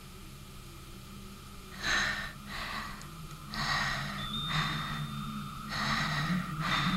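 An animated wolf's heavy, raspy breathing: a run of loud breaths, about one a second, starting about two seconds in, over a low steady hum.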